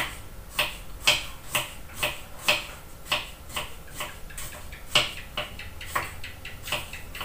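Kitchen knife chopping on a wooden cutting board: short, sharp knocks at a steady pace of about two a second.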